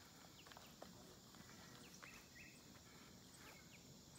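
Near silence: faint forest ambience with a few short, scattered bird chirps.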